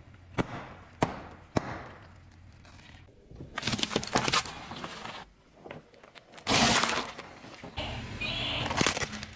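Car tyre crushing objects: a few sharp cracks about half a second apart, then a dense splintering crunch as a bundle of coloured pencils snaps under the tyre, and a louder crunch lasting about a second later on.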